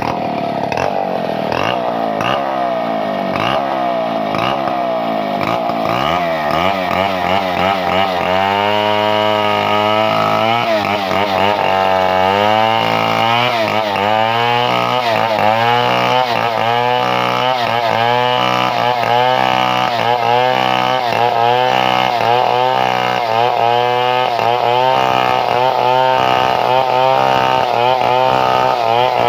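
Chainsaw running continuously at high revs, sawing timber; its note drops and settles about eight seconds in, then wavers regularly about once a second as it works through the cut.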